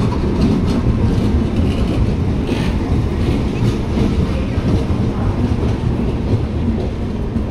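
Red-and-grey LHB passenger coaches of the 18517 Korba–Visakhapatnam Express rolling past close by, a steady rumble of wheels on rail with a few sharp clacks over the rail joints.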